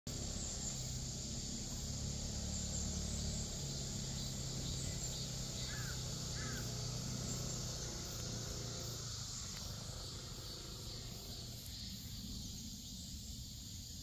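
Outdoor ambience: a steady high-pitched hiss with a low rumble underneath that fades after about eight seconds. Two short bird chirps come about six seconds in.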